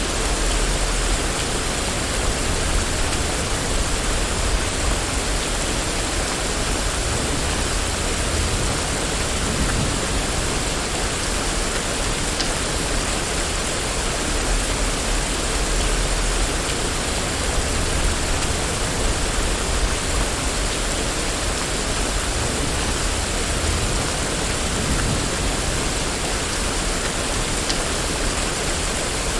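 Rain falling steadily on a street: an even, unbroken hiss with a low rumble underneath.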